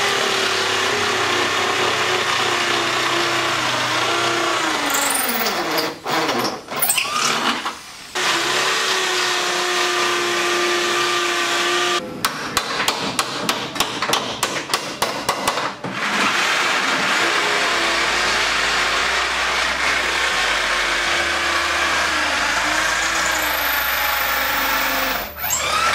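Cordless drill running in long steady spells with a whine whose pitch sags under load, driving screws into an aluminium kitchen cabinet frame. About halfway through, the drill gives way to a run of quick hammer taps on the cabinet, about three a second for some four seconds.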